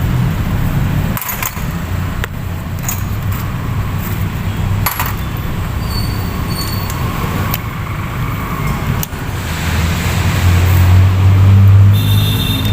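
Light metallic clinks and knocks every second or few, over a steady low rumble that grows louder near the end.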